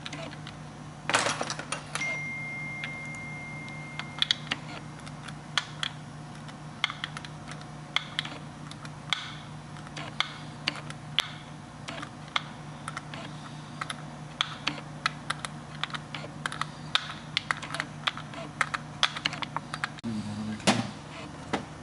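Irregular small clicks and taps of hard plastic as a plastic fuel pump assembly is handled and fitted, over a steady low hum.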